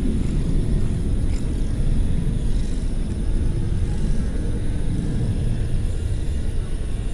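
Domestic cat purring close to the microphone: a steady low rumble that swells and eases slightly as it breathes.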